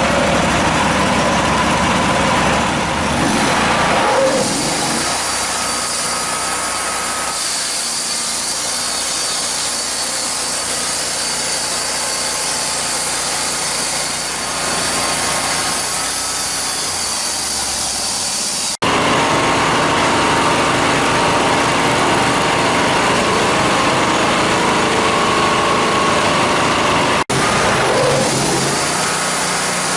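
Homemade sawmill running steadily under load, its engine driving the blade through a log. The sound cuts out for an instant twice.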